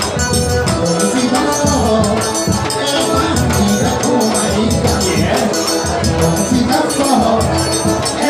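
Live forró pé-de-serra from a trio of piano accordion, zabumba bass drum and triangle, with the triangle ticking in a fast, steady rhythm over the drum and accordion.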